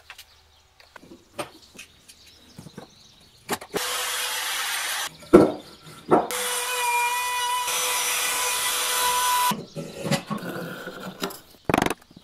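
A woodworking power tool runs in two bursts of a few seconds each, the second carrying a steady whine. Sharp knocks and clicks of wooden pieces being handled come between and around them.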